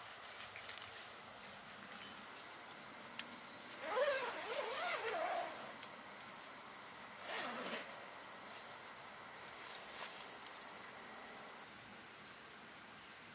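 Crickets and other night insects trilling steadily in a high, even tone. A louder wavering sound comes about four seconds in and lasts over a second, and a brief swish follows near eight seconds.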